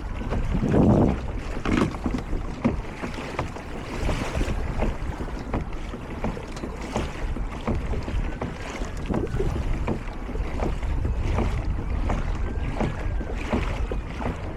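Water splashing and lapping against a pedal kayak's hull as it moves, with irregular small knocks and splashes and wind buffeting the microphone.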